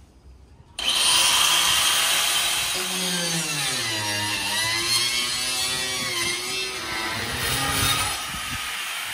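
A power tool cuts in suddenly about a second in and runs loudly, its pitch sagging and recovering as it works under load.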